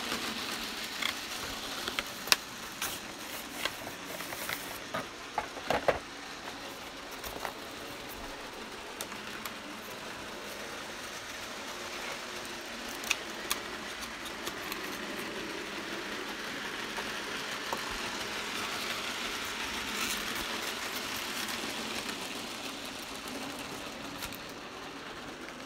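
HO scale model train running on the layout track: steady running noise from the motor and wheels, with sharp clicks as the wheels pass over rail joints and turnouts, most of them in the first six seconds and a few more later on.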